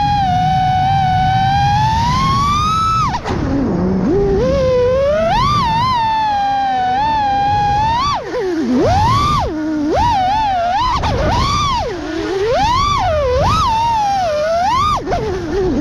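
Brushless motors and propellers of a 6S FPV freestyle quadcopter whining, the pitch swooping up and down rapidly with the throttle. The whine drops sharply about three seconds in and again around eight seconds, then climbs back each time.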